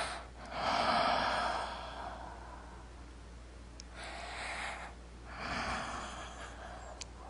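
A woman breathing out heavily through a wide-open mouth close to the microphone: three long exhales, the first the loudest and longest.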